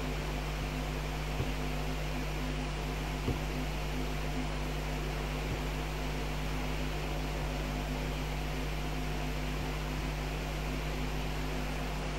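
Steady fan-like hum and hiss of background noise, unchanging throughout, with a couple of faint clicks in the first few seconds.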